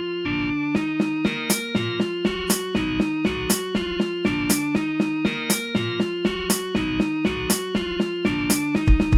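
Background music: a plucked-string melody, with a steady beat coming in under it about a second in.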